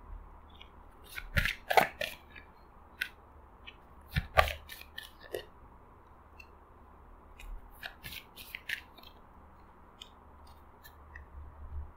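A deck of tarot cards being handled and dealt onto a table: short card snaps and slaps in clusters, the loudest about two and four and a half seconds in, with another run of lighter clicks near eight seconds.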